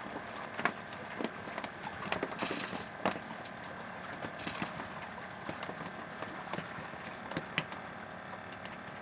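A motor running steadily, with scattered sharp clicks and knocks over it.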